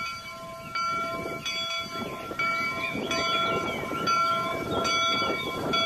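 Multi-tone locomotive horn sounding a held chord in several long blasts, over the rumble of a running train.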